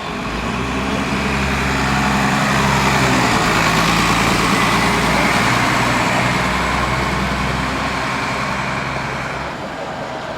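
Bus diesel engine running as the bus passes close by, growing louder over the first few seconds and fading off near the end.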